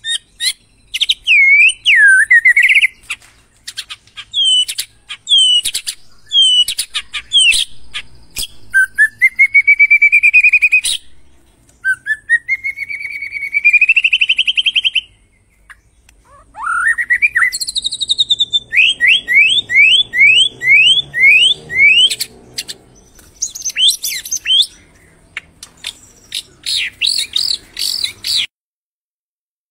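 White-rumped shama singing a long, varied song of clear whistles, rising glides and a fast run of about eight upswept notes, stopping abruptly near the end.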